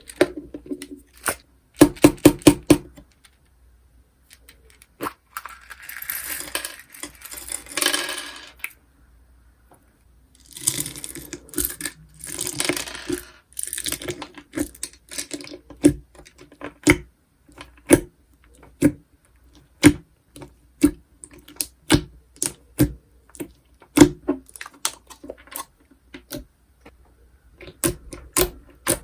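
Slime being handled: crisp clicks and pops, two spells of crackly, crinkling noise in the first half, then clicks about once a second for the rest.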